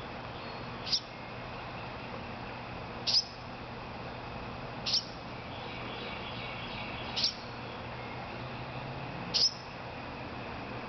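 Baby wren fallen from its nest chirping, calling for its mother: five short high chirps about two seconds apart.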